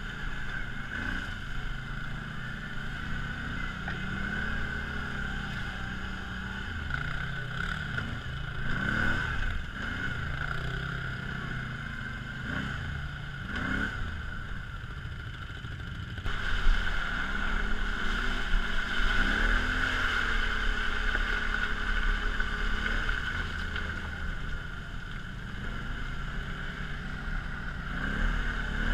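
Quad bike (ATV) engine running under the rider, revving up and falling back again and again as it works along a rough trail. It gets louder and rougher from a little past halfway.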